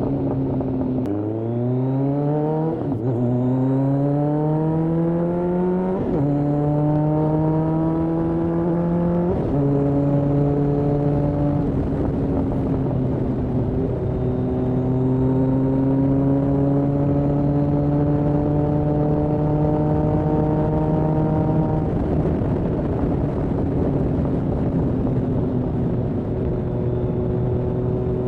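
Kawasaki ZRX1200R inline-four engine, breathing through Yoshimura TMR-MJN carburetors, accelerating up through the gears. Three upshifts come about 3, 6 and 9.5 seconds in, then it holds a steady cruise, easing off slightly near the end.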